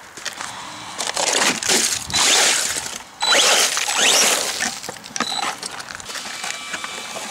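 Arrma Senton 3s BLX brushless RC truck driven in bursts on wet gravel, with a high electric motor whine that rises with the throttle over gritty tyre and gravel noise.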